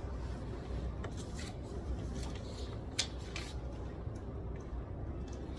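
Desk study sounds: light scattered rustles and small clicks of paper and stationery being handled, over a low steady room hum, with one sharper click about three seconds in.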